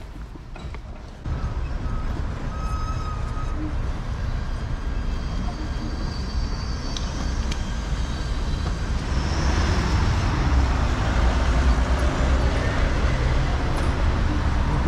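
City street traffic: a steady low rumble of engines and tyres. It jumps up about a second in and grows louder from about nine seconds as vehicles pass close by.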